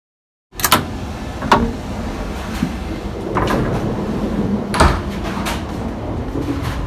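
Several sharp clicks and knocks, the loudest about a second in, again shortly after and near five seconds, over a steady low rumble.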